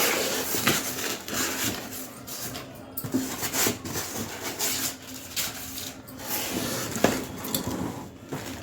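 A stainless-steel four-burner gas stove being lifted out of its box: packaging rustling and scraping, with a series of light knocks and clatters of metal.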